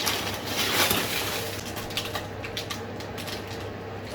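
Rustling and crinkling of plastic packaging being handled, with small clicks, busiest in the first second or two and then thinning out.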